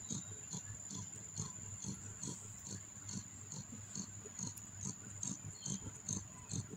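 Newborn kittens suckling at their mother cat, a soft rhythmic smacking of about three sucks a second.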